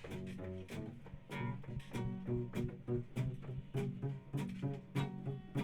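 Guitar and bass playing an instrumental song intro: a steady rhythm of strummed and plucked notes over a bass line.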